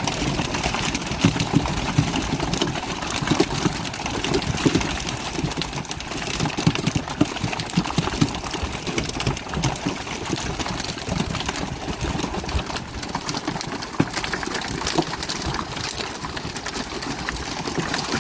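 Small fishing boat's engine running steadily, mixed with water sounds and irregular knocks.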